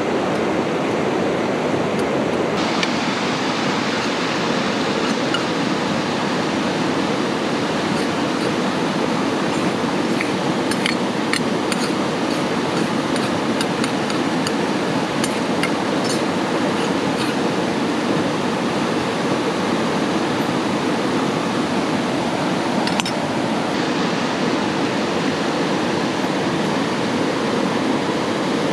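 Steady rushing water noise, with scattered light clicks and clinks, most of them in the middle.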